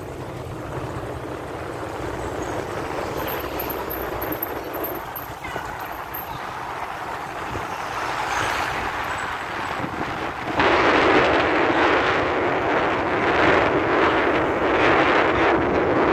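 Motor scooter riding along a street: a steady low engine and road rumble, then about two-thirds of the way in a sudden, much louder rush of wind on the microphone that stays to the end.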